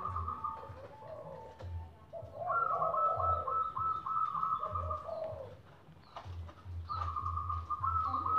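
Several caged doves cooing over one another: zebra doves (perkutut) give two long runs of rapid, high, stuttering coos, one about halfway in and one near the end, over lower, rounder cooing from other doves.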